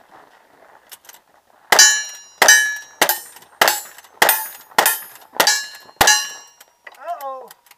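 A string of eight gunshots, evenly about 0.6 s apart, each followed by the ringing clang of a struck steel target.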